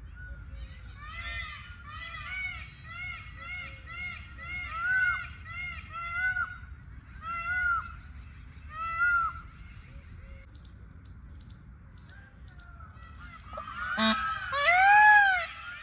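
Indian peafowl calling: a run of short, honking, arched calls, about one or two a second, growing louder through the first nine seconds. After a short lull comes a sharp click, then a louder burst of calls near the end.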